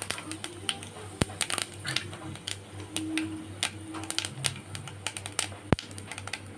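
Fennel seeds crackling and popping in hot oil in a pan, the tempering stage of the curry. The pops are irregular, several a second, with a couple of sharper ones about a second in and near the end.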